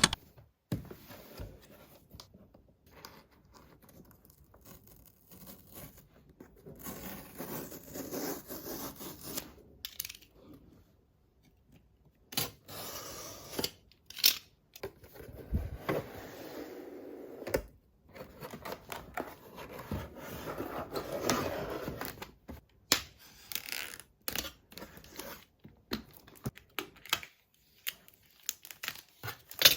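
Packaging being unboxed by hand: tearing of wrap, rubbing and scraping of cardboard and plastic, and small taps and clicks. These come in short stretches broken by abrupt silent gaps.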